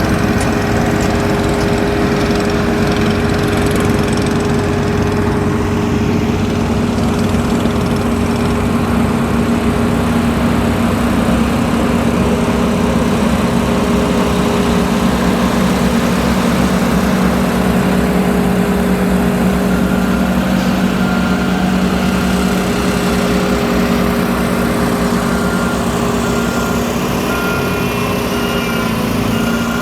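Heavy diesel engines of road-construction machinery running steadily. From about two-thirds of the way in, a vehicle's backup alarm beeps at a regular pace.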